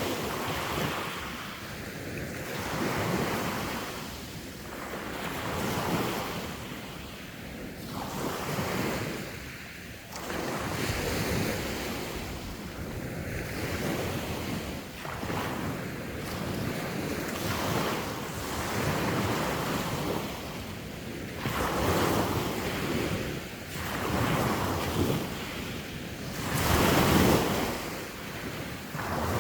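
Sea waves washing onto the shore in repeated surges every two to three seconds, each swelling and falling away, the biggest one near the end. Wind buffets the microphone underneath.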